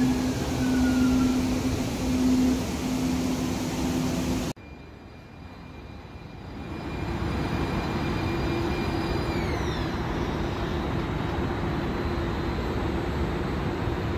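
Siemens S200 light-rail car in motion, heard from inside: running noise with an on-and-off hum and a high electric whine falling in pitch as it slows. After an abrupt cut, the train stands at the platform with its equipment running in a steady hum, and a few high whines fall away about halfway through.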